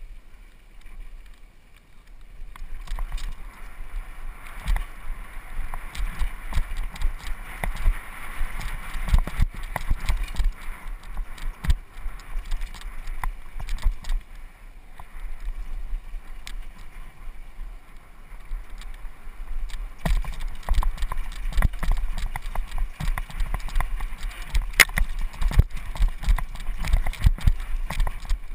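Downhill mountain bike rattling and knocking as it rides fast down a rough, dry dirt trail, with tyre noise on the dirt and a low rumble. Quieter for the first two seconds, then busy with sharp knocks from the bike over bumps.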